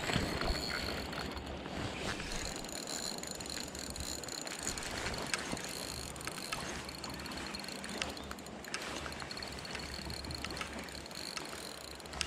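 Fishing reel being wound in steadily, its gears giving a thin, even whine with small scattered clicks, over a steady rush of moving water and wind.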